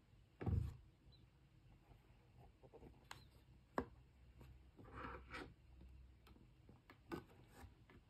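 Hands handling a small cardboard product box and a charging cable on a wooden table: a soft thump about half a second in as the box is set down, then a few light ticks and a brief scraping rustle.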